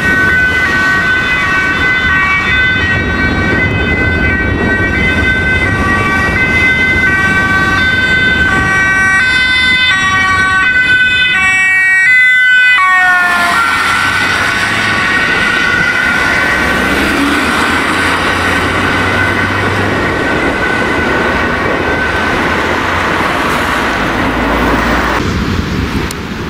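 Dutch ambulance on an urgent run sounding its two-tone siren as it drives past, with road and engine noise underneath. The siren's pitch drops sharply about thirteen seconds in as the ambulance passes, then carries on lower as it moves away, and near the end it cuts off.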